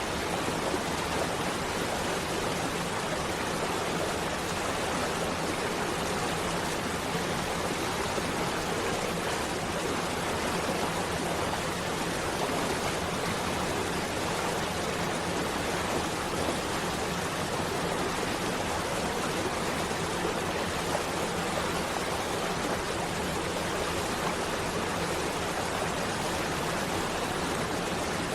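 Falling and running water of a waterfall: a steady, unbroken rush that holds even throughout.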